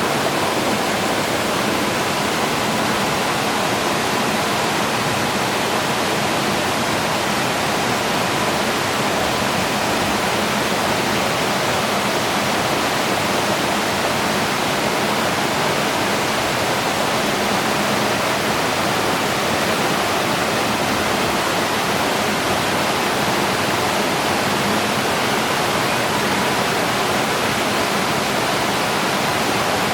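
Mountain stream water rushing steadily, an even, unbroken hiss-like rush with no changes.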